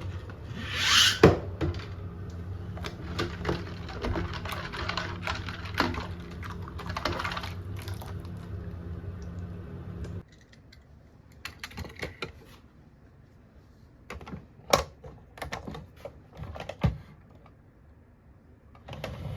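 Die-cast toy cars and plastic toy cases being handled: irregular small clicks and clacks, with a brief rustle about a second in. A low steady hum runs under the first half and stops about halfway, leaving only scattered clicks.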